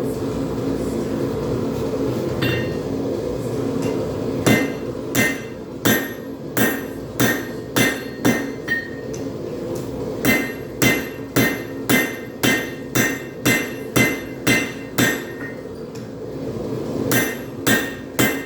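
Hand hammer striking a hot railroad spike on an anvil to widen the blade. The blows come about two a second in three runs with short pauses between them, and each one gives a sharp ringing clang. Before the blows start there is a steady background noise and a single light clink.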